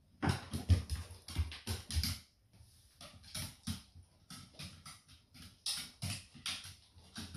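A small dog's claws clattering and tapping on bare timber floorboards as it scrambles up and moves about, a quick run of taps in the first two seconds, then scattered taps.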